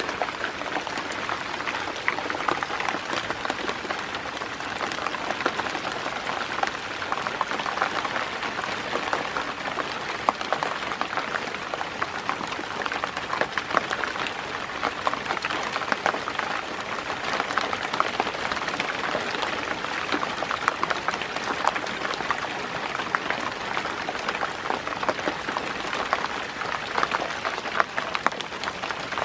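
Steady rain falling, a dense, even patter of many drops.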